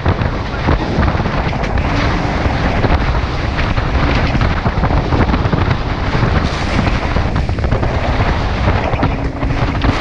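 Loud, steady wind buffeting the microphone, mixed with water rushing and spraying off the hulls of a Diam 24 trimaran sailing fast.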